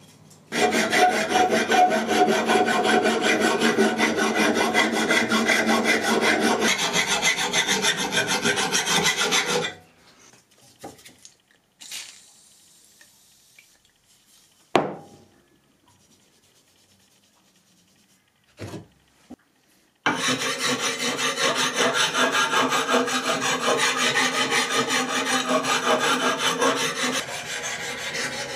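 Rapid back-and-forth rubbing strokes in two long bouts, separated by a quiet stretch with a few light clicks and knocks. The second bout is the adze's iron blade, clamped in a vise, being sharpened by hand.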